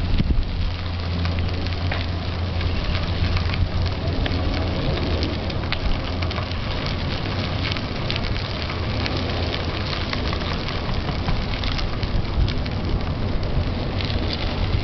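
Bicycle tyres rolling over a crushed-stone trail, a dense gravelly crackle, over a steady low rumble from wind on the microphone of a moving bike.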